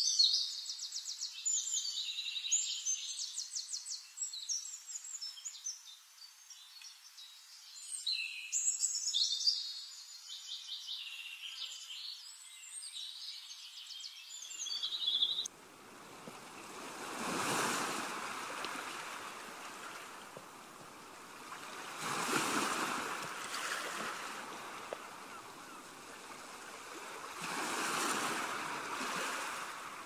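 Songbirds singing in rapid high trills and chirps, which cut off suddenly about halfway through and give way to waves washing in, three swells about five seconds apart.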